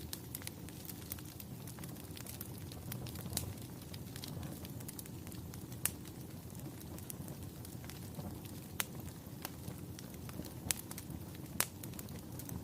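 A fire crackling: scattered sharp pops and snaps over a steady low rumble of burning, the loudest pops coming about halfway through and near the end.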